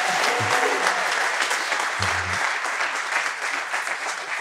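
Church congregation applauding, a steady dense clapping throughout.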